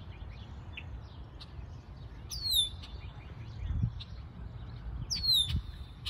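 Red-winged blackbird calling: two whistled calls about three seconds apart, each sliding down in pitch and then holding steady, over fainter scattered chirps. These are the alarm calls of a bird defending its nest.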